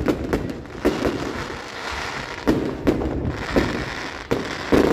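Fireworks display going off: a string of sharp bangs at uneven intervals, several close together in the first second, with crackling between the bangs.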